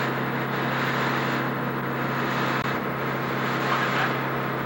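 Steady drone of idling airport ramp machinery beside a parked airliner, with a constant low hum under an even rushing noise. It dips briefly about halfway through.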